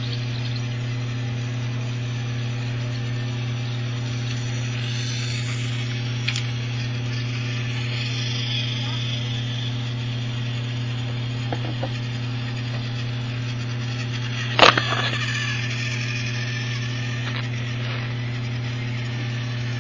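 Small battery motor of a TOMY plastic toy train whirring steadily as it runs along plastic track, with one sharp click about fifteen seconds in.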